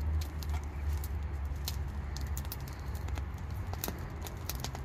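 Open wood fire of dry sticks and twigs crackling, with many sharp irregular pops over a steady low rumble.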